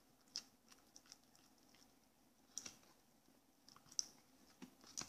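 Faint, irregular soft clicks and squelches of a spoon stirring wet, foamy slime in a plastic cup; the slime is still runny and not yet set.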